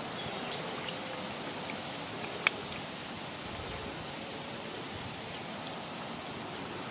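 Steady hiss of outdoor background noise, even and without any clear pitch, with one sharp click about two and a half seconds in.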